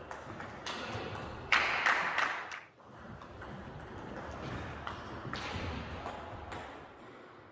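Table tennis ball clicking off paddles and the table during rallies, sharp hits at an irregular pace that echo in a large sports hall. A louder, noisier burst comes about one and a half seconds in and lasts about a second.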